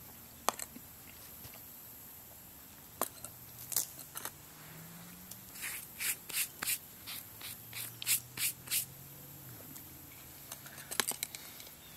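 Knife and fork clicking and scraping on a camp plate as steak is cut and eaten: a few separate clicks, then a quick run of about eight short scrapes midway, and a few more clicks near the end.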